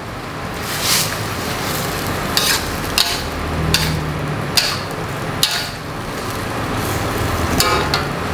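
Metal spatula scraping and clanking against a steel wok in a string of irregular strokes as stir-fried vegetables are tossed, over a steady sizzle. The sauce is being stirred together with freshly added cornstarch slurry to thicken it.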